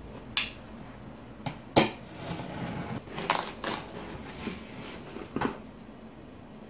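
A cardboard shipping box being handled and opened: a few sharp knocks, then a blade slitting the packing tape with a run of rasping scrapes, then the cardboard flaps folded open with a few light clicks.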